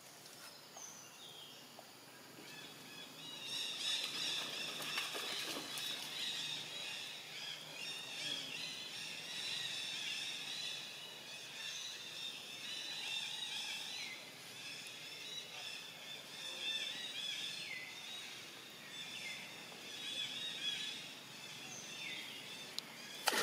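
Outdoor forest ambience filled with many small birds chirping, a dense chorus of short overlapping calls that builds up a few seconds in and carries on steadily. A short loud burst of noise comes right at the end.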